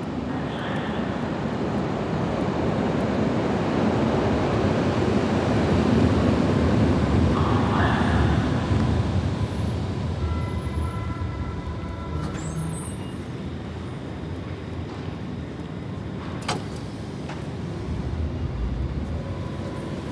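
Berlin U-Bahn small-profile train pulling into the station: a rumble that swells as the cars run alongside, then eases as it slows to a stop, with a few thin whining tones while it slows. A single sharp click comes about three-quarters of the way through.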